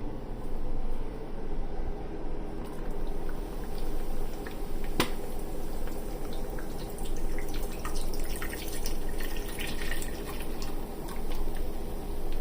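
Beer being poured into a cooking pot, splashing and fizzing, over a steady low hum, with a sharp click about five seconds in.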